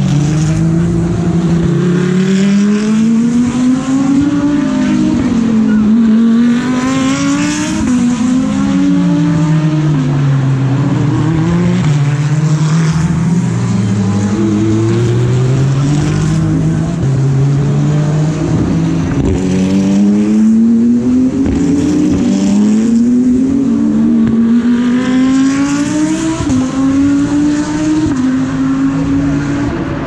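GT3 race car engines at racing speed, the pitch climbing and dropping over and over as the cars change gear, brake and accelerate through a corner.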